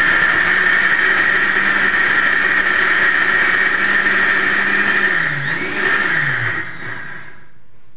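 Electric mixer grinder running steadily, grinding a thick coconut and chana dal chutney. About five seconds in it is switched off, and its hum falls in pitch as the motor winds down to a stop.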